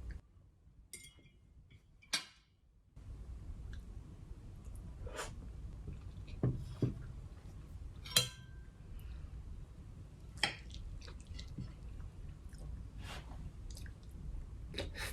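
A person chewing food, with scattered short clicks and clinks of cutlery against a dish.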